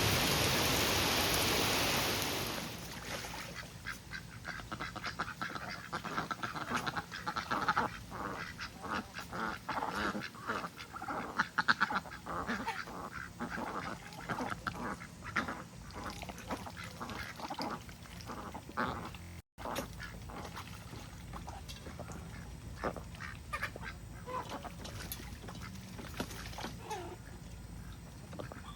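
Heavy rain hissing for the first couple of seconds, then a flock of domestic ducks quacking repeatedly in short, irregular calls.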